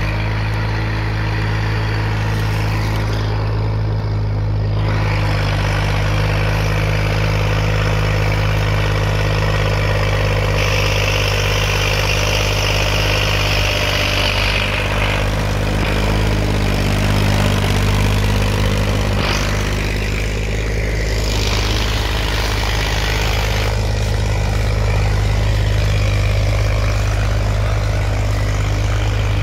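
IMT 539 tractor's three-cylinder diesel engine running steadily under load, hauling a trailer stacked with firewood.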